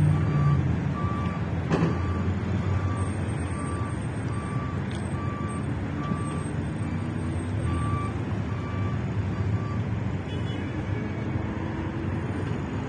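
Electronic beeper sounding one steady tone in short beeps, about two a second, over a continuous low traffic rumble; the beeping stops about ten seconds in.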